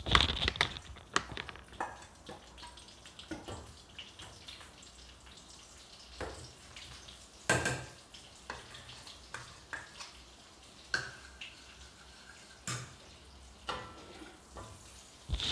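Butter melting in a hot pan: faint sizzling with scattered small pops and crackles, and a few louder knocks of a utensil against the pan.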